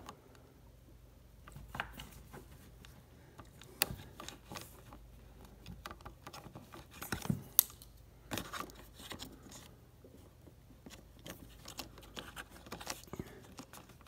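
Scissors snipping through a plastic wire-protector sleeve around a refrigerator door's wire harness: scattered sharp snips and clicks with handling rustle between them, the loudest a little before 4 s and around 7 and a half seconds.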